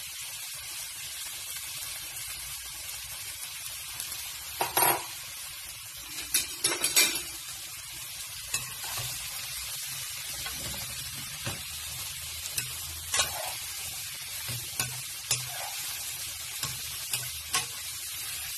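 Chicken and mixed vegetables sizzling steadily in a hot wok as they are stir-fried, with a spatula scraping and clattering against the pan now and then; the loudest clatters come about five and seven seconds in.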